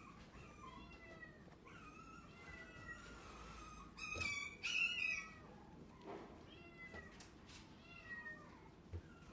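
Chihuahua–Miniature Dachshund cross puppy whimpering in a run of short, high, falling squeaks, with two louder whines about four and five seconds in.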